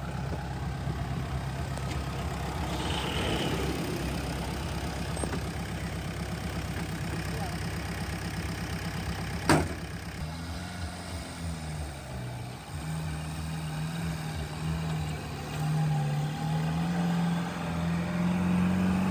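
Diesel engine of a loaded Mahindra Loadking Optimo tipper truck idling steadily, then a single sharp knock about halfway through. After it the engine pitch rises and falls and grows louder as the truck pulls away under load.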